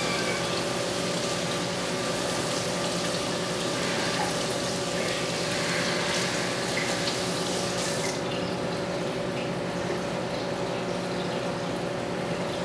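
Reef aquarium's water circulation running: a steady splashing trickle of water with a low, steady pump hum under it. The high hiss of the water softens about two-thirds of the way through.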